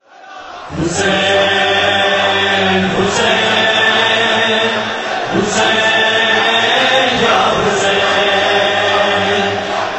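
Chorus of voices chanting in long held notes, the opening of a noha, fading in from silence over the first second and then holding steady and loud.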